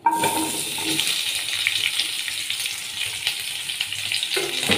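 Chopped onions and tomatoes hitting hot oil in a kadai and sizzling, a steady hiss with fine crackles that starts suddenly as they land.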